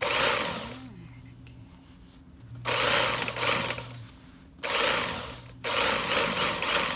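Industrial blind-stitch hemming machine sewing the hem of school-uniform trousers in four short runs of rapid stitching, each a second or so long, with the motor humming between runs.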